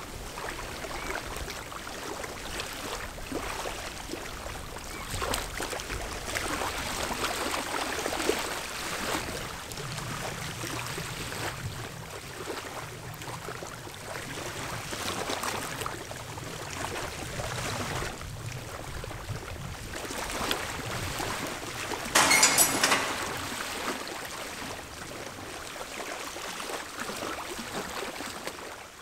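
Small waves lapping and washing on a sandy harbour shore, an uneven steady wash of water, with one short, louder rush of noise about three quarters of the way through.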